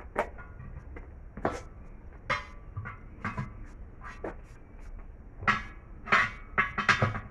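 Metal tools knocking and clanking on a truck wheel as it is taken off: about a dozen irregular, ringing metallic hits, coming thickest near the end.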